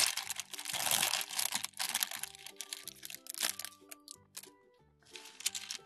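A thin plastic bag crinkling as small plastic building-toy pieces are shaken out of it, strongest in the first two seconds, followed by scattered light clicks of the pieces. Light background music plays underneath.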